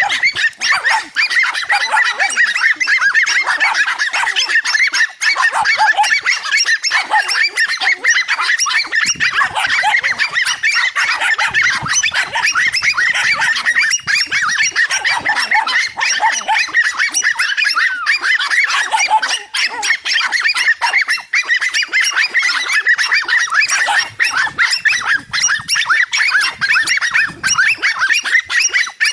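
A pack of dogs barking and yapping nonstop at a cornered lizard, many high-pitched barks overlapping with hardly a break.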